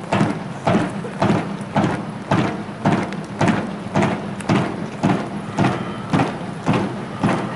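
A column of soldiers marching in step, their boots striking the road together about twice a second over a steady low rumble.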